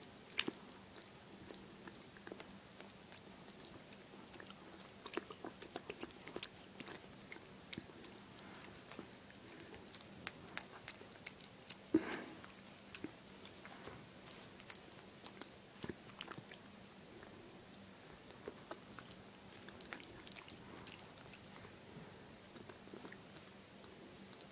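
Miniature schnauzer chewing, its jaws and mouth making irregular wet clicks and smacks close to the microphone. One louder click comes about halfway through.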